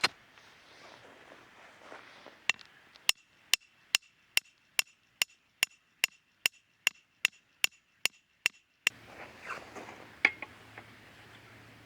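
A metal hammer striking metal in a steady series of about sixteen blows, two or three a second, each with a short ringing tone.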